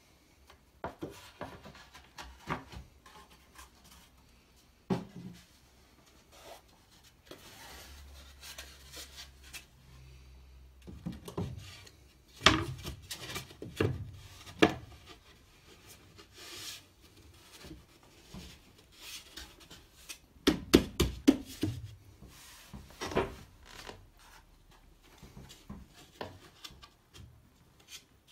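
MDF skirting boards being handled and set in place against the wall and floor: wood rubbing and scraping, with clusters of sharp knocks as the mitred ends are pushed together, loudest about halfway through and again about three-quarters through.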